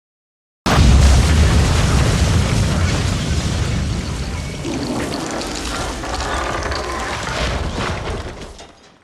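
Bomb explosion sound effect: one sudden blast under a second in, followed by a long rumble with scattered crackles that slowly dies away and fades out near the end.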